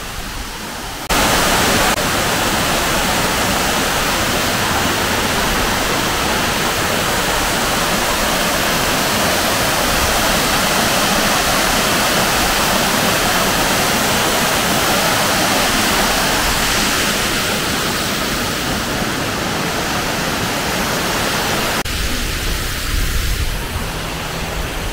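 Waterfall rushing, a loud, steady wash of falling water. It starts abruptly about a second in and shifts in character near the end.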